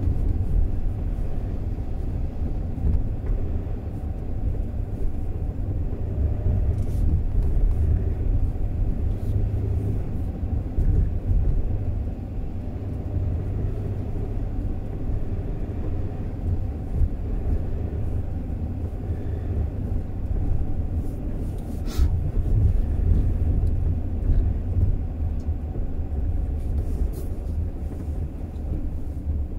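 A car being driven on a road: a steady low rumble of engine and tyres. A sharp click comes about twenty-two seconds in.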